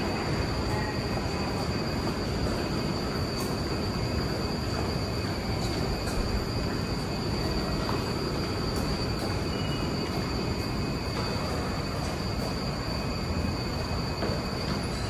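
Tokyo Metro 2000-series subway train standing at the platform, its onboard equipment giving a steady hum and noise with a constant high-pitched whine.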